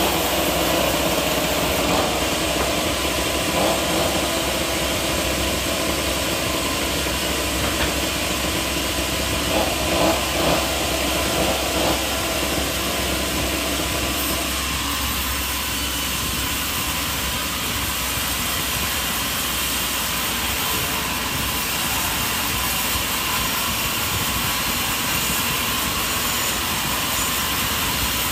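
An engine-driven machine running steadily. The fuller middle of its sound drops away about halfway through, leaving a thinner, hissier running noise.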